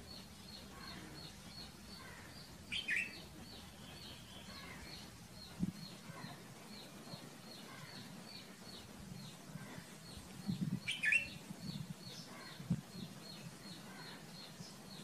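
Red-vented bulbul giving short, bright chirping calls twice, once about three seconds in and again past the middle. Behind them a high, short note repeats steadily about three times a second, with a few low thumps.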